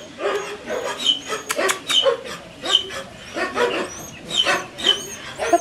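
Six-week-old Collie puppies yapping: a rapid run of short, high barks and yips, one call following another with little pause.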